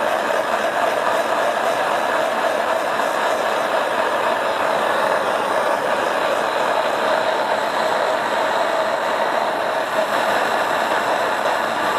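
Propane torch flame burning steadily: a loud, even rushing hiss of gas and flame with no breaks.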